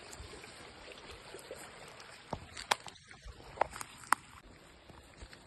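Footsteps on a brushy trail with four sharp snaps or cracks in the middle, over a faint steady rush of running water.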